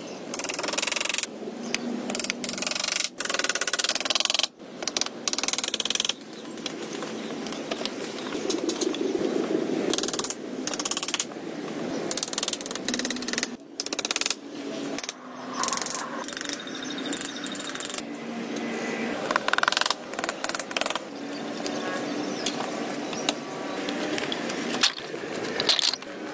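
Hatchet work on wood: irregular sharp knocks as a sawn wood round is chipped and wooden rounds are tapped into place, with rubbing and scraping of wood between strikes.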